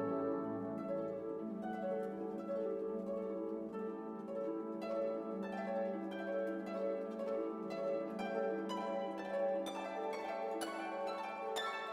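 Instrumental background music: plucked, harp-like string notes over a held low note.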